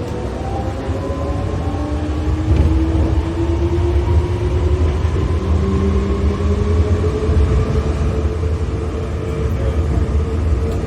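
New Shuttle people-mover train accelerating: a motor whine rising in pitch and levelling off about halfway, over a steady low rumble of the running gear.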